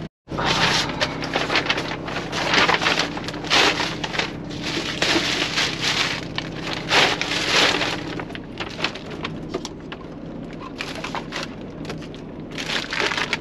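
A thin plastic bag being handled and crinkled, with irregular crackling, heaviest in the first half and lighter after that, over a steady low hum.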